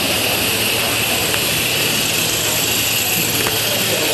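Steady hiss of gas-fired live-steam model locomotives, even in level throughout, with faint voices behind it and a couple of light clicks.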